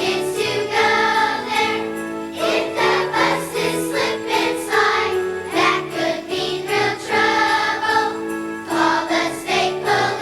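Children's choir singing a Christmas song over musical accompaniment with jingle bells.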